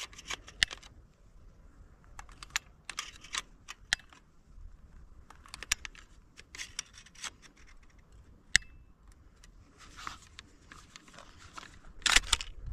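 Short Albatross five-shot pump-action shotgun being loaded by hand: scattered metallic clicks and clacks as shells are pushed into the magazine, with a louder clatter near the end.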